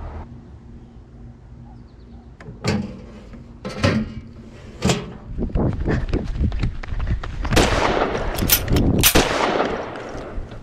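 Nerf foam-dart blasters being fired: single sharp pops a second or so apart, then a dense flurry of pops with rustling noise near the end.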